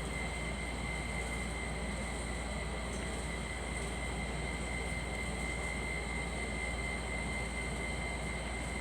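Steady mechanical background noise: an even low rumble and hiss with a constant high-pitched whine, unchanging throughout, with no coughs.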